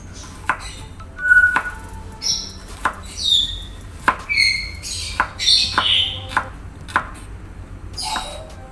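Chef's knife slicing shallots on a wooden cutting board: irregular taps of the blade striking the board, about a dozen. Short high chirping calls sound between the taps.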